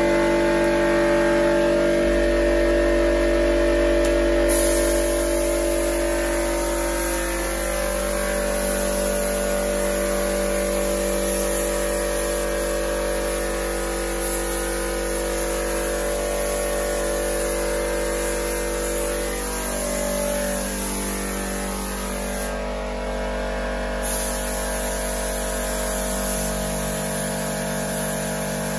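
Gravity-feed spray gun hissing as it lays a light second coat of etch primer, over a steady motor hum. The hiss is stronger from a few seconds in and dips briefly near the end.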